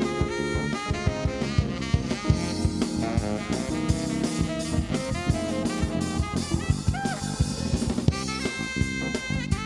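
Live jazz-funk band: a saxophone solo with bending, gliding notes over a busy drum kit groove, electric bass and keyboards.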